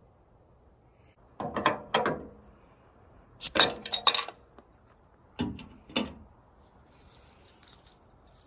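Glass beer bottle's metal cap being levered off on a truck bed's built-in metal bottle opener: three bursts of sharp metallic clicks and clinks about two seconds apart.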